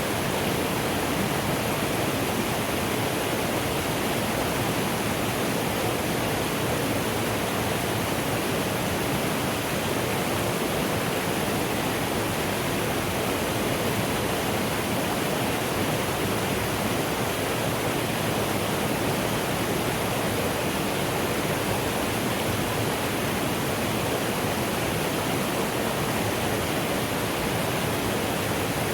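Mountain stream of the Suto River rushing steadily over rocks, a constant unbroken rush of water.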